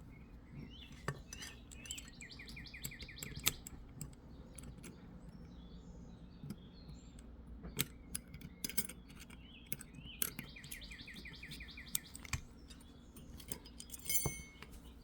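Light metallic clicks and taps of small revolver parts being handled: the leaf mainspring and frame of a Hopkins and Allen Forehand revolver worked by hand. A bird sings in the background, two quick trills of repeated notes about two and ten seconds in.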